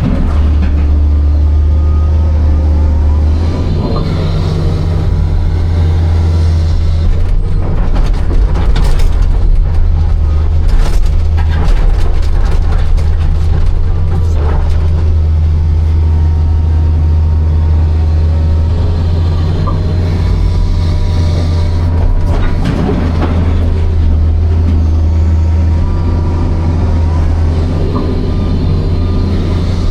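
Hitachi 260 excavator's diesel engine running steadily under load, with hydraulic whine, and clusters of knocks and clatter from digging and handling stone about a quarter to halfway through and again about three-quarters of the way through.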